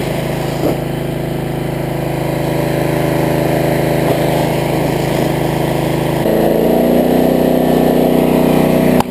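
Small gasoline engine of a 150-GPM portable water pump running steadily under load, its speed stepping up to a higher, steady pitch about six seconds in.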